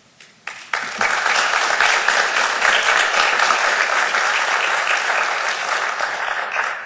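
Audience applauding: a few scattered claps, then full applause within a second that holds steady for about six seconds and dies away at the end.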